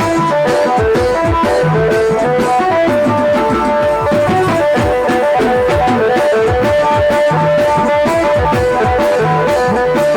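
Adivasi band baja music: a lead melody of short held notes over a steady, driving drum beat.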